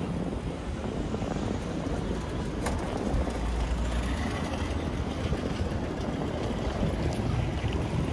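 City street ambience: a steady wash of traffic noise, with a low rumble of passing vehicles growing louder about three seconds in.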